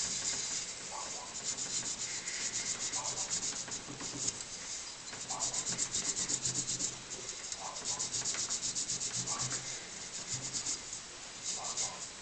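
Hand rubbing and scrubbing on the brass and copper of an old miner's lamp as it is cleaned, quick back-and-forth strokes in spells with short pauses.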